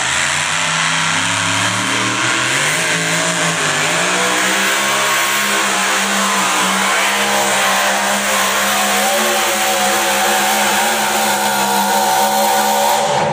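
A pulling vehicle's engine running loud at high revs under load, its pitch climbing over the first few seconds and then held steady.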